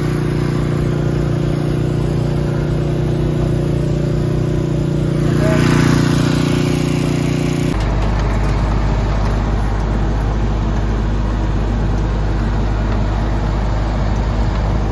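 Heavy construction machine engines running steadily. A brief hiss swells about five to six seconds in, and about eight seconds in the sound switches abruptly to a lower-pitched engine drone from a small asphalt paver.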